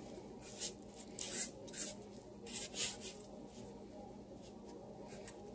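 Hands pressing and rolling a salmon patty through a cornmeal coating on a plate: soft, brief brushing and scraping strokes of the coarse meal, several in the first three seconds and fewer after.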